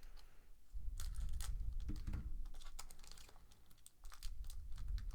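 Plastic trading-card pack wrapper crinkling and tearing as it is worked open by hand, with irregular clicks and rustles of handling.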